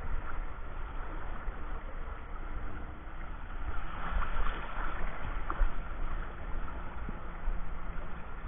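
Sea water sloshing and wind buffeting the microphone, with gusty low rumbles. A faint steady hum comes in from about halfway through.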